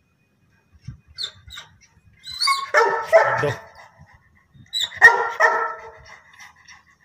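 A dog barking in two loud bouts about two and a half seconds apart, each lasting about a second.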